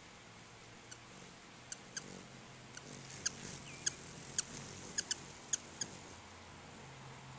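Ruby-throated hummingbirds giving short, sharp, squeaky chip calls, about a dozen at irregular intervals, loudest in the middle, with one brief sliding squeak among them.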